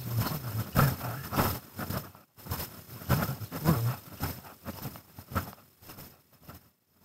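Irregular crunching and rustling from the moving camera, with a man's low, muffled muttering.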